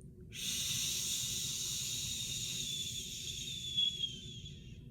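A woman's long, deliberate breath hissing steadily, as in a breathing exercise, lasting about four and a half seconds, with a faint whistle near the end before it dies away.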